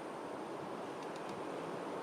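Steady background hum of the early-morning outdoors with a few short, faint, high bird chirps about a second in.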